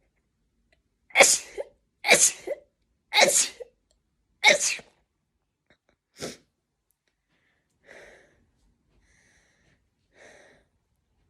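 A woman sneezing four times in quick succession, about a second apart, followed by a shorter, quieter fifth sneeze.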